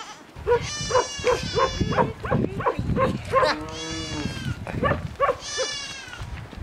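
Goats bleating: a quick run of short calls, then a longer drawn-out bleat a little past halfway, and more bleats near the end.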